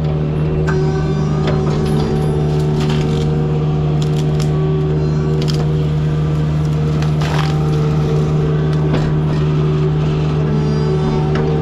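Forestry mulcher running steadily at working speed while its cutting drum grinds into wood, with sharp cracks and snaps of wood breaking every second or two.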